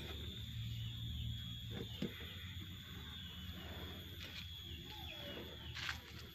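Faint outdoor background of birds chirping over a steady low hum, with a few light clicks about two, four and six seconds in.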